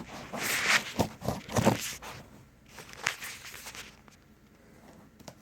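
A cardboard shipping box being handled and worked open: irregular rustling and scraping with a few sharp knocks, busiest in the first two seconds and again about three seconds in.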